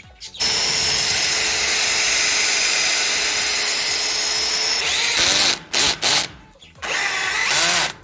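Cordless drill driving screws through a door hinge into a timber frame. The motor runs steadily for about four seconds, then speeds up and gives several short bursts near the end as screws are driven home.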